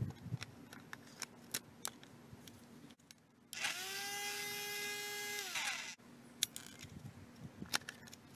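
KUMAS cordless grass trimmer's electric motor, running on a homemade pack of store-bought rechargeable cells, spinning up with a rising whine, running steadily for about two seconds and winding down. Before and after, a knock and plastic clicks from handling the battery pack in the trimmer's handle.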